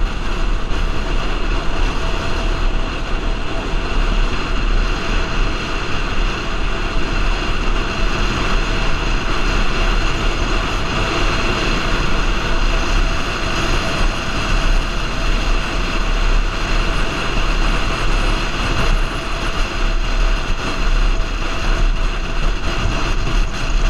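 Wind buffeting the microphone on a moving motorbike, a steady, loud rush with a constant engine hum underneath.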